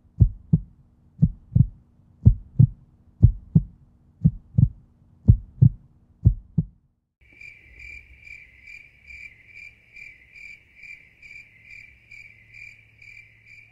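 Heartbeat sound effect: a low double thump about once a second, stopping about seven seconds in. Then crickets chirping, a steady high chirp about three times a second.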